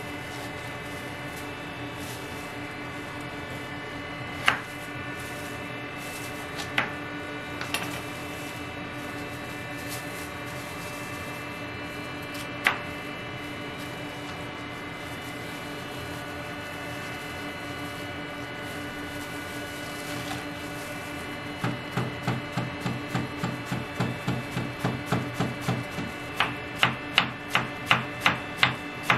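Chef's knife cutting a head of cabbage on a wooden cutting board: a few separate knocks in the first half, then from about two-thirds through a quick, even run of chops, about three a second, growing louder as the cabbage is shredded. A steady machine hum runs underneath.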